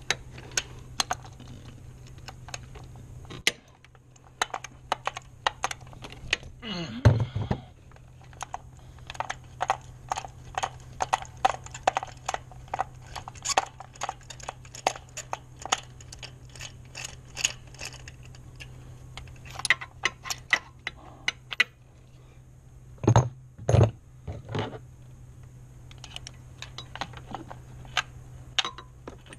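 Hand tools and metal engine parts clicking and clinking during reassembly after a spark plug change, in quick runs of light clicks, with a few heavier thumps about 7 seconds in and again twice near the 23-second mark.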